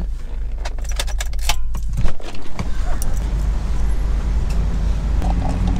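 Car keys jangling and clicking as the ignition is switched off and the key taken out, then a car-door thump about two seconds in, over a steady low rumble.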